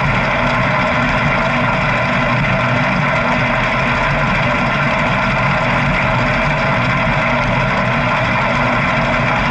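Motorcycle engine running steadily at constant revs, a continuous drone with no rise or fall in pitch.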